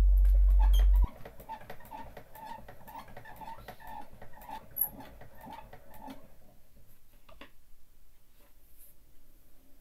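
Nitto No. 20 wind-up gramophone being wound by its side crank: the spring motor's winding mechanism clicks about twice a second and stops about six seconds in, with one more click a little later. A loud low hum fills the first second.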